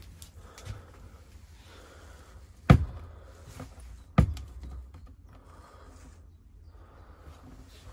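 Two sharp wooden knocks, about a second and a half apart, as the hinged wooden cover over a gas hob is lifted and propped upright.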